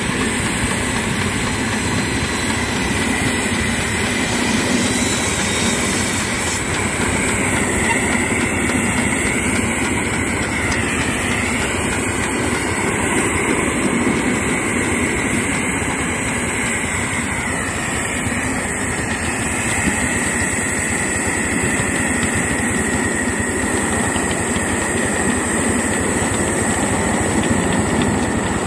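7¼-inch gauge miniature steam locomotive running along the track, heard from the driving seat: a steady, loud mix of the engine working and the wheels on the rails. A faint wavering whine comes in near the middle.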